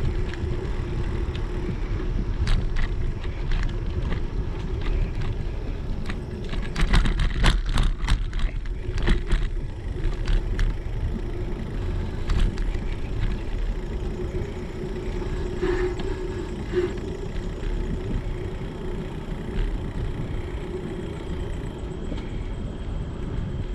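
Bicycle rolling along a paved path: steady wind rumble on the camera microphone and tyre noise, with a run of sharp clicks and rattles about seven to ten seconds in.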